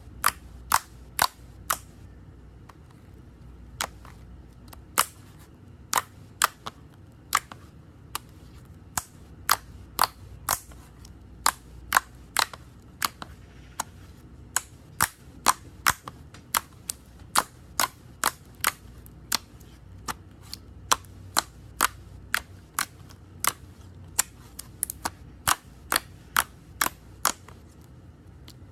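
Slime being pressed and worked, giving a long run of sharp, crisp pops at an irregular pace of about one to three a second.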